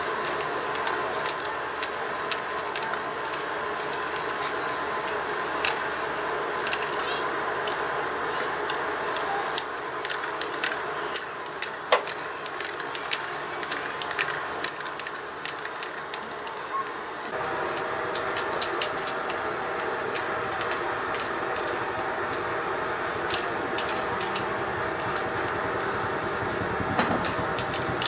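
Aerosol spray can hissing in long bursts, with two short breaks, one about a third of the way in and one about halfway, and scattered light clicks throughout.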